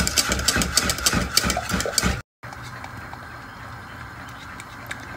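Wire whisk beating milk sauce in a metal pot: rapid, loud clicking of the wires against the pot, while the bechamel thickens on the heat. It stops abruptly about two seconds in, leaving a much quieter steady hiss with a few faint ticks.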